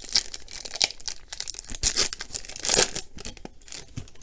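A trading-card pack wrapper being torn open and crinkled, a run of papery rustles and tears that is loudest about two to three seconds in.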